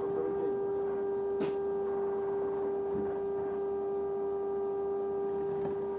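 A bus's odd noise at one constant pitch: a steady, unchanging mid-pitched whine with fainter overtones above it, heard inside the bus. A single click comes about one and a half seconds in.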